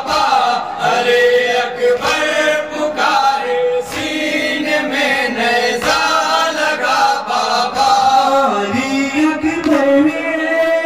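Men chanting a Muharram noha (lament) in chorus, in long held, melismatic phrases. A few sharp chest-beating slaps (matam) come through at irregular moments.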